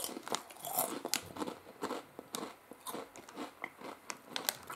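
Potato crisps being chewed: a run of quick, irregular, crackly crunches.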